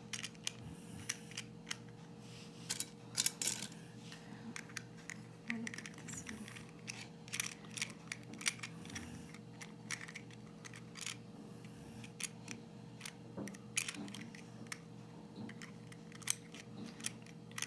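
Irregular small plastic clicks and snaps as the pieces of a red plastic Smashers smash ball are handled, fitted together and pressed closed by hand.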